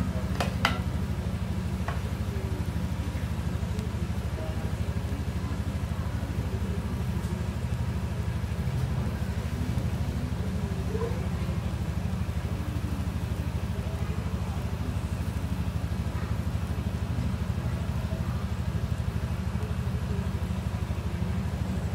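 Pancake batter frying in oil in a pan with a faint sizzle, over a steady low hum. A couple of light clicks in the first two seconds.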